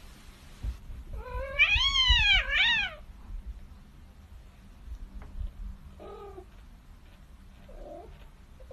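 Cat meowing: a long, wavering, drawn-out meow about a second in, running straight into a shorter one, then two faint short meows later.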